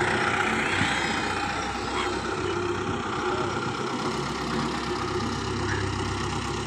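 Farm tractor's diesel engine running steadily as the tractor drives over sand, getting a little quieter as it moves away.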